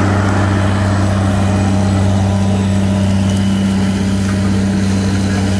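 John Deere 9200 articulated tractor's six-cylinder diesel engine running steadily under load as it pulls a disc harrow, a constant low drone.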